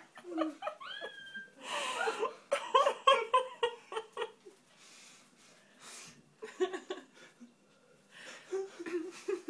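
Laughter mixed with heavy breathing and gasps from someone with a mouth burning from a ghost chili pepper. A short rising voiced cry comes about a second in.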